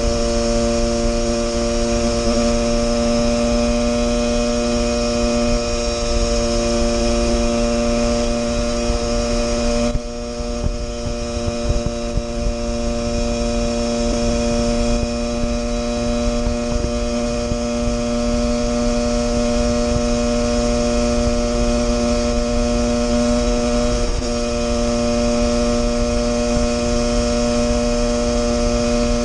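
Husqvarna 144 SMR supermoto's engine running at a steady cruise, holding one constant note, with wind rush on the microphone. About ten seconds in the sound drops and wavers briefly before settling back to the same steady note.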